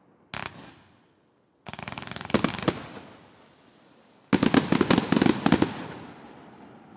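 Fireworks going off: a single bang, then a quick run of rapid crackling reports, and about four seconds in a denser, louder volley of rapid reports that then dies away.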